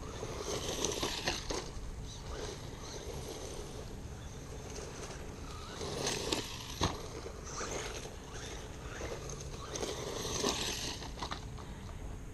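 Small electric RC truck with a brushed RC380 motor driving over dirt in spurts: the motor and tyres rise and fall in three surges of hiss, with a sharp knock about seven seconds in.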